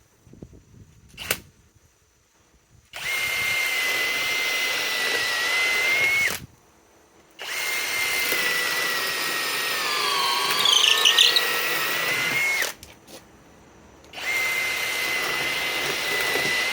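Master Force Boost 800 in-lb cordless hammer drill on its 5 Ah boost battery, in speed 2, running in three bursts with a steady high motor whine. The pitch dips and recovers partway through the longer middle burst.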